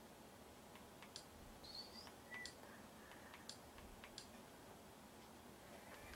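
Near silence: room tone with faint clicks about once a second, and a brief high chirp about two seconds in.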